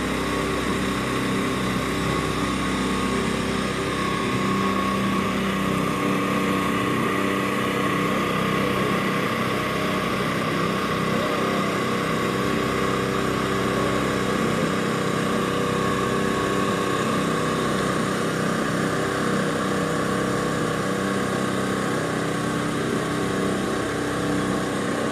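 A small engine running steadily at a constant pitch, with a thin steady whine above it.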